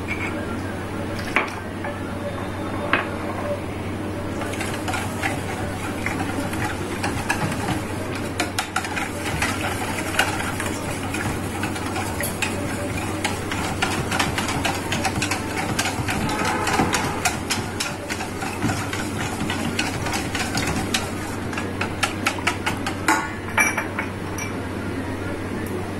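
A wire whisk beating a thin gram-flour and yogurt batter in a stainless steel bowl, its metal tines clicking rapidly and unevenly against the steel.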